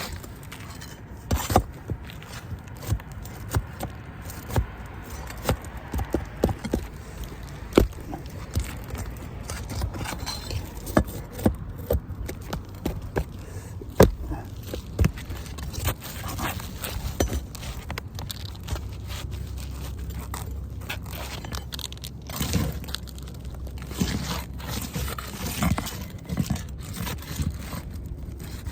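Scraping and prying at brittle asphalt roof shingles and their nails, with many irregular sharp clicks and knocks.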